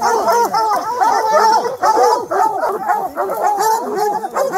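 A pack of bear hounds barking treed at the foot of a tree: several dogs' rapid, overlapping barks with no break, the sound that tells the hunters a bear is treed.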